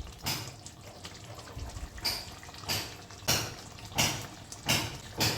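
Spoon stirring thick soya chap curry in a pan: a run of short, wet sloshing strokes, about one every two-thirds of a second.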